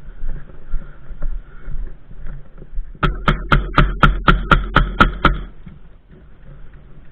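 Airsoft gun firing a quick string of about ten sharp shots, roughly four a second, starting about three seconds in and stopping about two seconds later.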